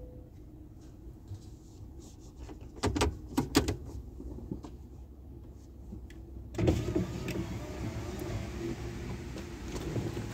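A vehicle's power window running, heard from inside the cab: the noise steps up suddenly about six and a half seconds in and stays up. A few sharp knocks come about three seconds in.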